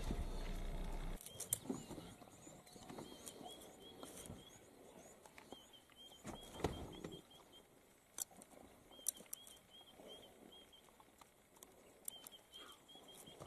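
Faint outdoor sounds: runs of short, evenly spaced high chirps that come back every second or two, with scattered soft clicks and taps. A low steady rumble cuts off about a second in.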